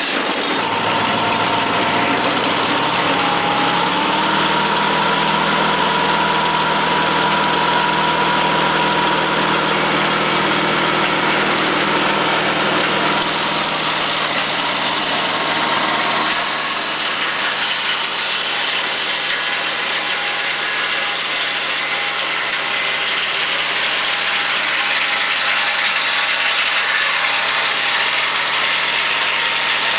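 An engine idling steadily just after being started, its note stepping slightly about four seconds in and shifting again around sixteen seconds.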